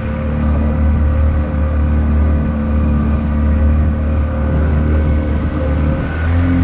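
Boat motor running steadily at low speed, a deep drone with a slight rise in pitch near the end.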